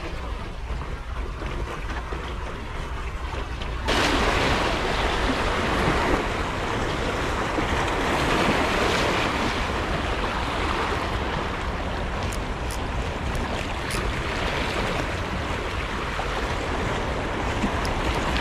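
Small waves washing over shoreline rocks, with wind buffeting the microphone as a steady low rumble; the surf noise turns suddenly louder about four seconds in.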